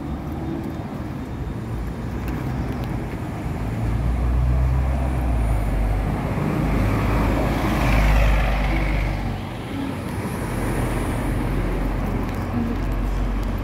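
Road traffic: motor vehicles driving past on the street, a steady low rumble that grows louder as one vehicle passes, loudest about eight seconds in.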